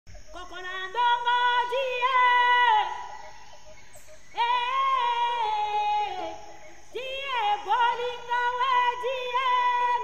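A high female voice singing long held notes that slide between pitches, in three phrases with short pauses between them.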